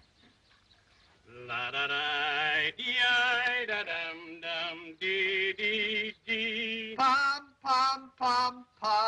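A man singing with a wavering vibrato, starting about a second in; near the end the song breaks into short separate notes.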